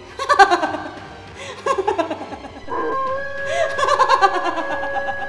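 A woman laughing loudly in three bursts of rapid ha-ha pulses. Partway through, a steady held tone of background music comes in beneath it.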